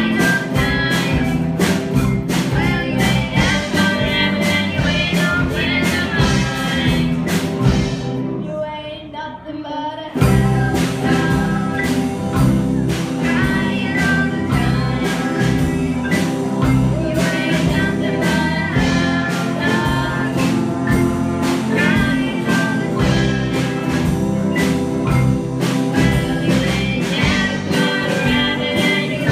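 Live band playing with a steady beat, four women singing together into microphones over keyboards and guitar. About eight seconds in the beat drops out for a couple of seconds, leaving quieter held notes, then the full band comes back in.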